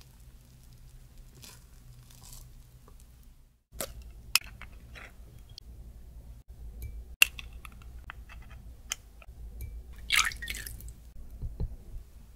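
A few faint scrapes of a wooden spoon in cocoa-dusted tiramisu, then fresh eggs being cracked and separated by hand over a glass bowl. Sharp taps and crackles of eggshell come with squishy drips of egg white falling into the bowl, and a louder crackling of shell comes near the end.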